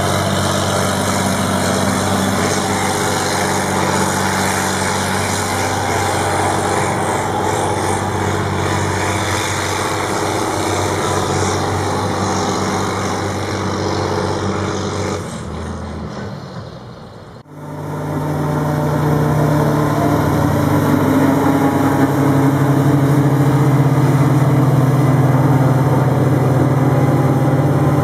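Heavy diesel farm machinery engines running steadily. Partway through the sound fades out and breaks off, and a different engine comes in, running steadily with a slightly lower tone.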